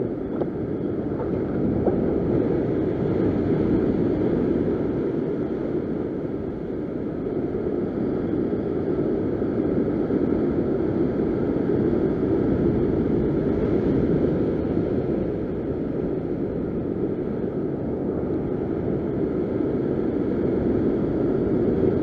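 Heavy ocean surf breaking and washing over a rock ledge, mixed with wind buffeting the microphone; the noise rises and eases slowly as the waves come in.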